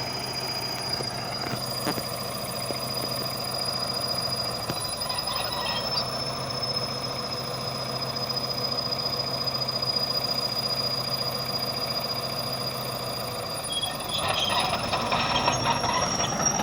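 An old train humming steadily, a high thin whine held over a low hum. About fourteen seconds in, a louder rattling clatter joins and the whine rises slightly.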